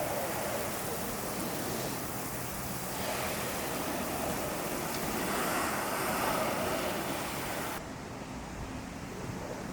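Steady rushing noise of wind and rolling board wheels during a freeboard ride. It swells about two-thirds of the way through, and the high hiss drops off suddenly near the end.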